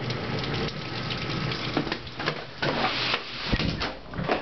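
Thunderstorm rain pouring, a steady hiss with scattered sharp clicks and a louder surge about three seconds in.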